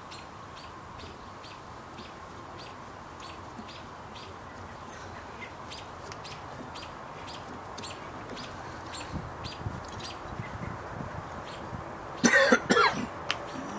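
Faint light metal ticks as a bolt is turned by hand into a threaded puller hole in a Briggs & Stratton lawn mower engine's flywheel, over a steady background hiss. A loud short burst of sound about twelve seconds in.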